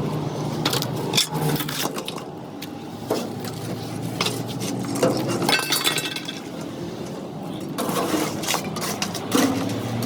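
Scattered metallic clinks and knocks at irregular intervals, some with a brief ring, typical of metal tools or parts being handled.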